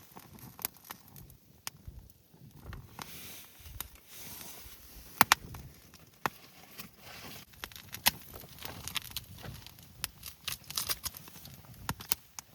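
Wood fire crackling in a small homemade fire stand, with irregular sharp pops; the loudest come about five seconds in and about eight seconds in.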